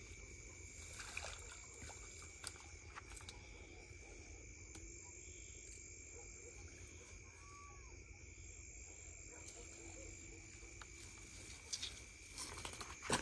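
Faint night chorus of crickets and frogs, a steady high-pitched trill, with scattered rustles and snaps of dry grass and reeds as a person pushes through them, loudest near the end.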